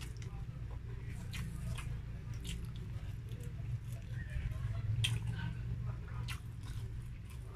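Close-miked chewing and mouth sounds of a person eating grilled chicken and rice, with irregular wet clicks and smacks, over a steady low hum.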